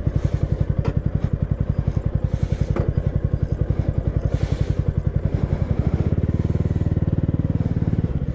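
Motorcycle engine running at low revs with an even, fast pulsing beat. A deeper rumble swells in about six seconds in and drops away just before the end.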